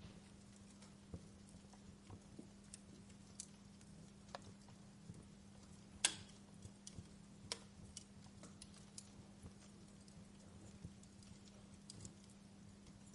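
Wood fire crackling softly, with irregular sharp pops and snaps; the loudest snap comes about six seconds in.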